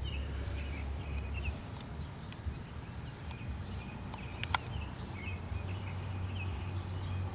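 Outdoor ambience: a low rumble of wind on the microphone, with small birds chirping briefly now and then. A single sharp click about four and a half seconds in.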